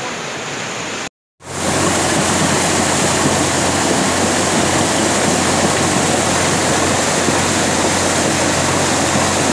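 Rain-swollen floodwater rushing steadily. The sound cuts out briefly just after a second in, then carries on louder.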